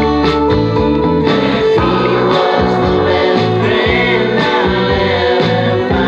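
Recorded band music from a rock song: guitar chords over a steady beat, with a drum hit about once a second.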